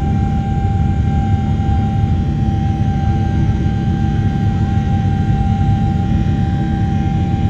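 Jet airliner engines and airflow heard from inside the passenger cabin during takeoff: a loud, steady low rumble with a steady whine riding over it.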